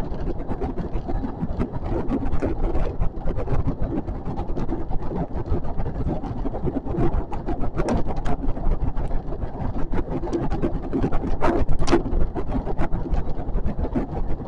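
521-series electric train running along the track: a steady low rumble with frequent irregular clicks and knocks from the wheels on the rails.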